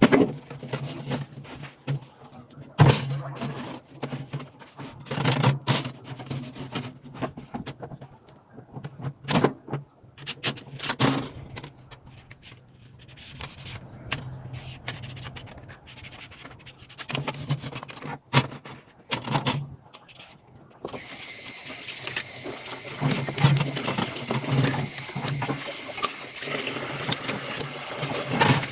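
Scattered knocks and clatter of things being handled, then water starts running steadily about two-thirds of the way in.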